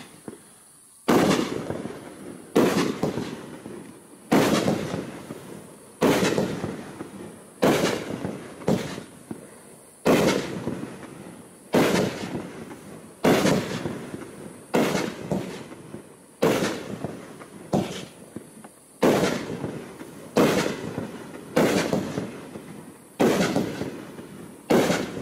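A 500-gram consumer fireworks cake (Raccoon Fireworks Ammo Box) firing shot after shot, about one every second and a half, each a sharp bang that trails off over about a second.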